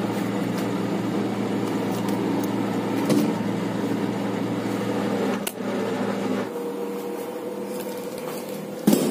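Refrigerator running with a steady electrical hum, heard from inside the open fridge, with a couple of knocks as a plastic-wrapped pack is taken off the wire shelf. The lower part of the hum drops away about two-thirds of the way through.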